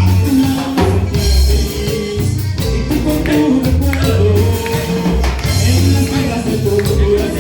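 Music with singing over a strong bass beat and percussion, a band performing.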